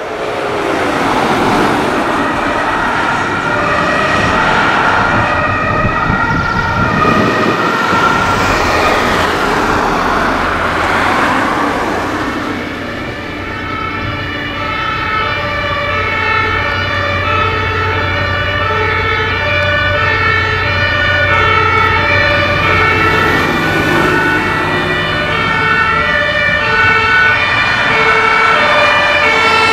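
German two-tone emergency sirens (Martinshorn) on vehicles driving on blue lights, stepping back and forth between a high and a low note. In the first dozen seconds an ambulance passes close with engine and tyre noise sweeping by; from about halfway through, the two-tone siren sounds clearly over a steady engine hum.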